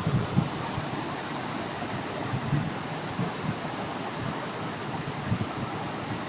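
Floodwater streaming over gravel and stones, a steady rushing, with a few brief low thumps, the loudest about half a second in.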